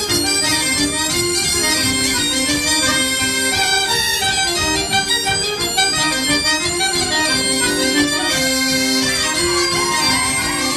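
Traditional Breton folk-dance music with a continuous reedy wind melody of the bagpipe kind, played for dancers on stage.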